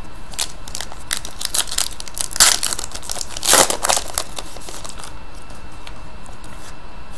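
Foil wrapper of a hockey card pack torn open and crinkled by hand: steady crackling with two louder rips in the middle, then softer rustling as the cards come out.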